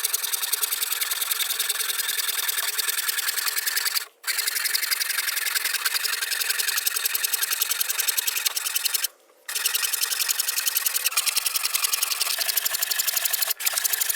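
Electric jigsaw cutting through a board with plywood clamped beneath it. It runs at a steady, fast buzz and stops briefly twice, about four and nine seconds in.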